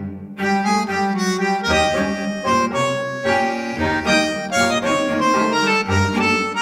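Instrumental background music: a melody of changing notes over a low bass line, with a brief break just at the start.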